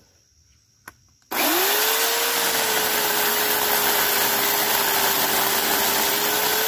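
Small electric chainsaw switched on about a second in. Its motor whines up to speed at once and then holds a steady pitch as it saws into a branch two to three inches thick.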